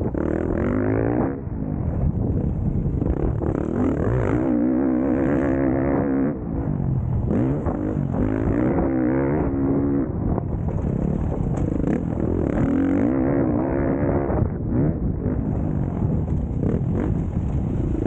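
Motocross bike engines revving hard, the engine note rising and falling again and again with throttle and gear changes, heard from onboard a following bike.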